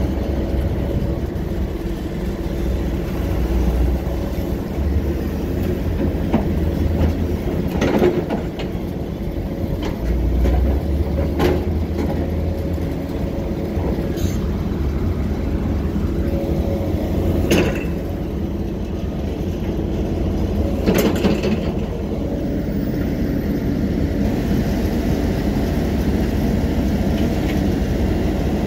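Heavy construction machinery running steadily, its engine a continuous rumble, with a few sharp knocks or clanks every few seconds.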